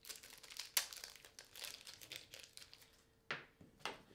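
Thin plastic wrapper crinkling and crackling as a camera battery is unwrapped by hand, with one sharper crackle about a second in. Two short knocks near the end.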